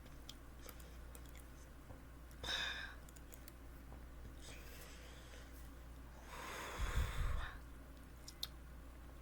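A person breathing out audibly twice: a short breath about two and a half seconds in, and a longer, louder exhale like a sigh around seven seconds in. A few faint clicks come between them.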